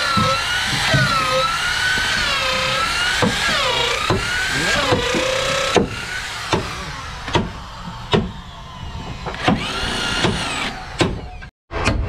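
Corded electric drill boring into a new wooden hull plank, its motor whine rising and falling as the bit bites. After about six seconds it gives way to a string of sharp knocks, roughly one a second.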